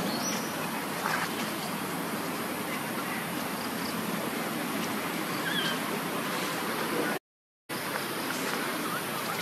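Steady outdoor background noise with a few faint, short high chirps. The sound cuts out completely for about half a second around seven seconds in.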